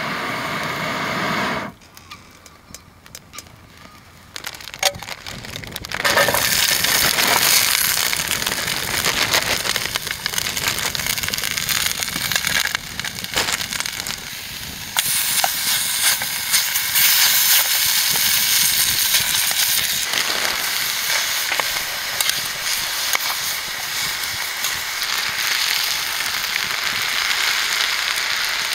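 Food frying in a small pan over a wood campfire, a loud steady sizzle thick with the crackle and pops of burning firewood. Before the sizzle sets in, about six seconds in, only the wood fire crackles.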